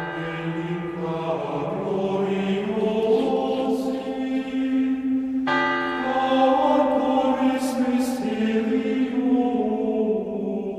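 Choral intro music: voices singing long held, chant-like notes that shift pitch every second or two, with a new phrase entering about halfway through.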